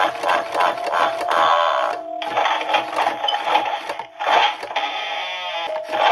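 Animated Halloween skeleton-hand prop overvolted to 9 volts from a bench power supply, its small speaker playing a harsh, tinny electronic sound effect: rapid pulsing at first, then longer held stretches with a steady tone, broken by brief gaps.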